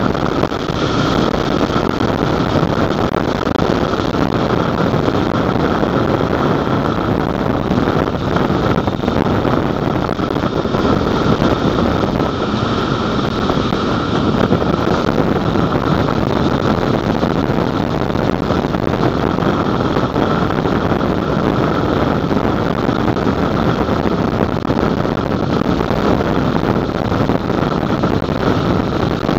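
Steady rush of wind on the microphone mixed with the road noise of a vehicle travelling at traffic speed, loud and even throughout.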